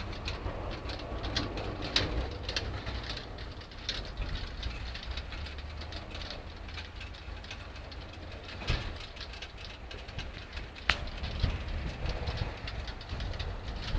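Helicopter rotor drone, a steady low rumble, with a few sharp clicks over it.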